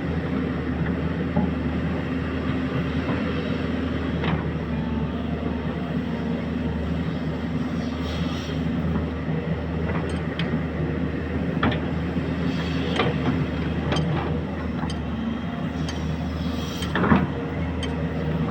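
Excavator's diesel engine running steadily, with a few sharp knocks or clanks of work scattered through, the loudest near the end.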